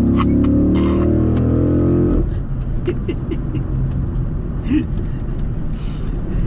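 Dodge Charger SRT8's 6.1-litre V8 accelerating hard, its note climbing steadily. About two seconds in the throttle is lifted and it drops abruptly to a low rumble.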